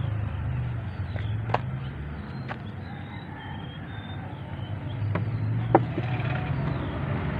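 A low engine drone that fades for a few seconds in the middle and then comes back, with a few sharp clicks from handling a fishing rod, reel and line.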